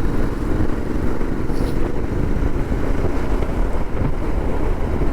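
Royal Enfield Interceptor 650's 648 cc parallel-twin engine running steadily as the motorcycle rides along, with wind rushing over the microphone.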